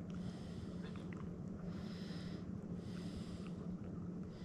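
Shiba Inu licking and nibbling at its front paw, with soft snuffling breaths about once a second and a few faint wet clicks, over a steady low hum.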